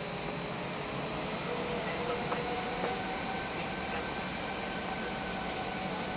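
Steady airliner cabin noise on the ground: the rumble and hiss of idling jet engines and air conditioning, with a faint whine that rises slowly in pitch.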